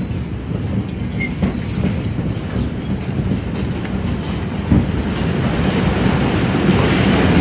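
Steady, loud low rumble that grows a little louder near the end, with a single thump about five seconds in.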